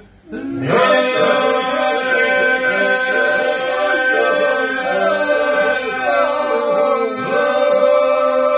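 A group of men singing a Lab polyphonic song unaccompanied, a held drone under ornamented, wavering lead lines. The singing breaks off briefly right at the start and comes back in within about half a second.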